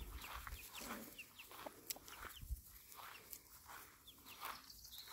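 Chickens clucking faintly in short scattered calls.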